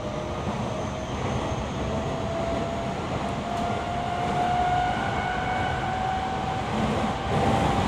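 Toyo Rapid Railway 2000 series electric train heard from inside the car: the traction motors' whine climbs steadily in pitch as the train gathers speed, over the rumble of the wheels on the rails.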